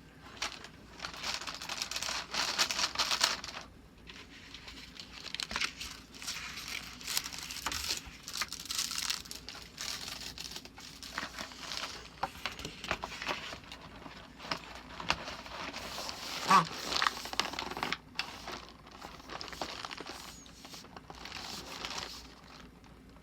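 Packaging of a Lindt Mini Pralinés chocolate box crinkling and rustling as it is handled, in irregular stretches of a second or two with short pauses between.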